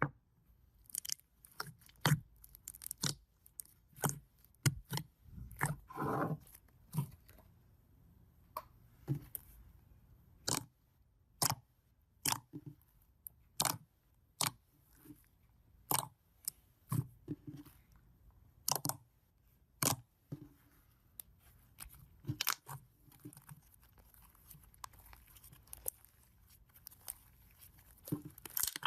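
Slime being worked by hand, giving irregular crackling pops and snaps, one or two a second with short pauses between.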